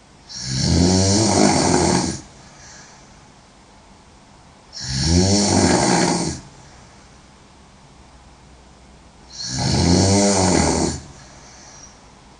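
A woman snoring loudly: three long snores about four and a half seconds apart, each followed by a faint short hiss.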